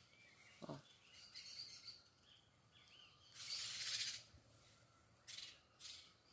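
Faint birds chirping in short arched calls, with a brief rustle a little past three seconds in and two shorter ones near the end.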